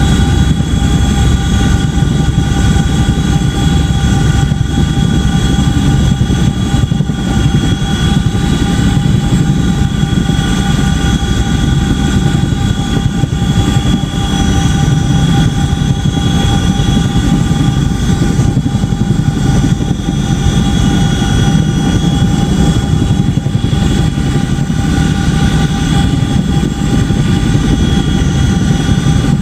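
Boeing CH-47D Chinook tandem-rotor helicopter running loudly and steadily: a deep rotor rumble under the high, unchanging whine of its twin turboshaft engines.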